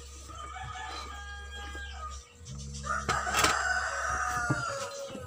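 A rooster crowing twice: a shorter crow in the first two seconds, then a louder, longer one about three seconds in that falls in pitch at its end. A few light knocks of the cardboard box and machine being handled.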